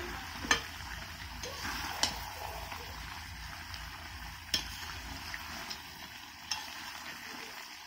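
Desi chicken and potato curry sizzling in a steel kadai while a spatula stirs it through the juices the meat has released, the spatula knocking sharply against the pan four times.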